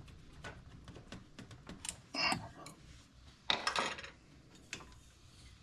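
Light metallic clicks and clinks of hand tools on metal parts, with two short, louder scraping bursts about two and three and a half seconds in.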